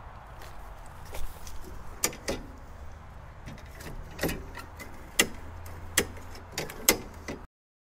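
Irregular sharp clicks and light knocks of mower parts and tools being handled, about a dozen spread across several seconds; the sound cuts off abruptly near the end.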